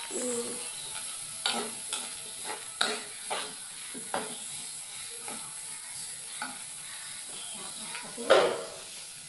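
Wooden spatula scraping and knocking against a metal wok as chopped beef offal is stirred, over a steady sizzle of frying, with the loudest scrape near the end.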